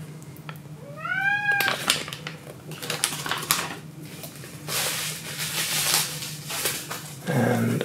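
A domestic cat meows once about a second in, one call that rises and then holds. Plastic bags and bubble wrap crinkle and rustle as they are handled.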